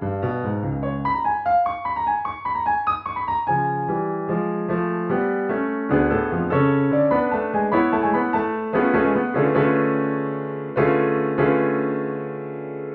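Solo piano playing a reduction of an atonal orchestral cue: a melody line over chords, built on twelve-tone triads. A last chord struck near the end rings and fades.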